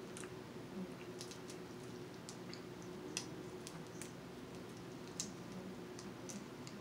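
Cooked snow crab leg shells being cracked and picked apart by hand: faint, scattered small clicks and snaps, with sharper cracks about three and five seconds in.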